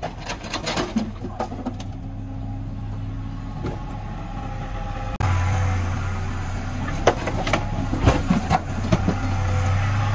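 Diesel engine of a Doosan DX60 mini excavator running steadily, with clusters of sharp knocks as broken bricks from its bucket drop into a steel dump truck bed, once at the start and again about seven to nine seconds in. The engine hum steps up louder at a sudden change about five seconds in.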